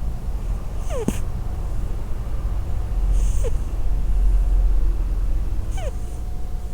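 Scottish Straight cat snoring in its sleep: a steady low rumbling snore, with a short squeaky whistle falling in pitch on the breath three times, a couple of seconds apart.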